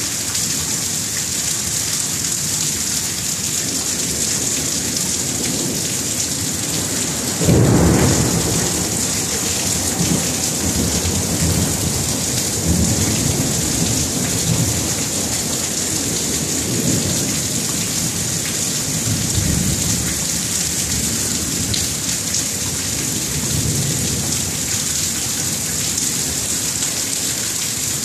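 Thunderstorm: steady heavy rain, with a sudden loud crack of thunder about seven seconds in, then low rolling rumbles that swell and fade several times.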